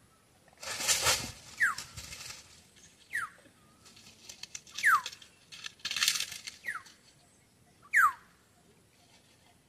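An animal's short calls, each sliding quickly down in pitch, repeat about every second and a half. Two longer bursts of rustling and handling noise come about a second in and about six seconds in.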